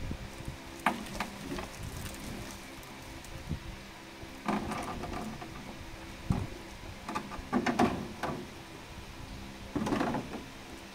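Clear plastic blister tray and plastic wrapping crinkling and rustling as they are handled, in several short irregular bursts over a faint steady hum.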